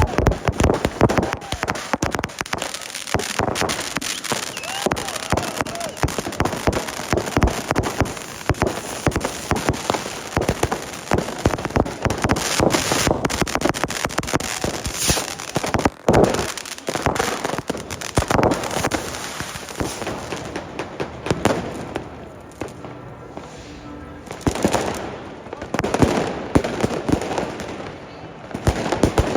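New Year's Eve fireworks and firecrackers going off all around in a dense, continuous run of bangs and crackling. The bangs thin out briefly about two-thirds of the way through, then come a few loud single bangs near the end.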